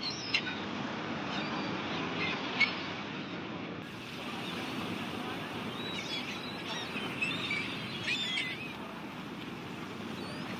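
Steady rain hiss with a few sharp crackles and pops from a wood fire in the first three seconds. A few short, high bird chirps come between about six and nine seconds in.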